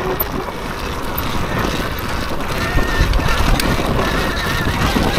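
Surron Ultra Bee electric dirt bike rolling down a steep dirt hill on the brakes: steady crackling tyre noise over dirt, with a faint wavering whine from about three seconds in.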